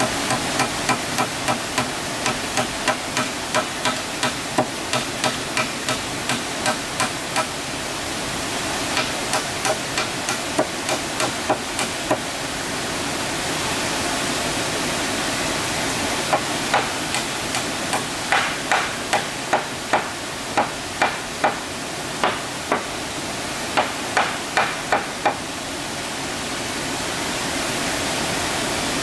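Rapid, evenly spaced blows of a hand tool striking wood, about three a second, in runs of several seconds with short pauses; they stop a few seconds before the end. A steady rushing noise runs underneath throughout.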